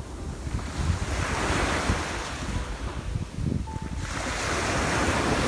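Sea waves breaking and washing onto the shore, two surges of surf a few seconds apart. Wind rumbles on the microphone underneath.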